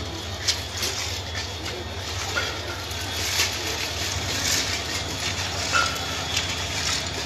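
Steady low machine-like hum under an even hiss, with scattered clicks and knocks.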